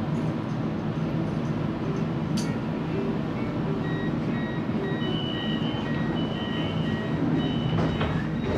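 Siemens Inspiro metro train running at speed, heard from inside the carriage: a steady rolling rumble with a hum and a couple of short clicks. From about halfway through, a repeating pattern of short high electronic beeps at a few pitches sounds over it.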